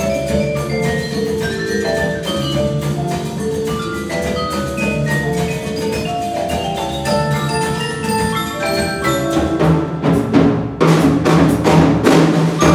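Percussion ensemble playing on marimbas, xylophones and other mallet instruments: a quick, dense run of pitched notes. About ten seconds in, heavy struck hits join and the music gets louder.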